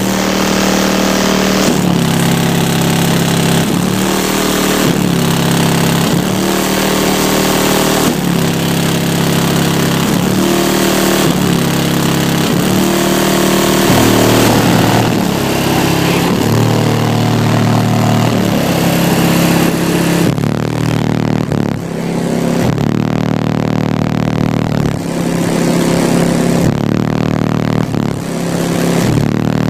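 Car-audio subwoofer system playing bass-heavy music at competition volume, a run of short low bass notes changing about once a second, with a harsh distorted buzz over them.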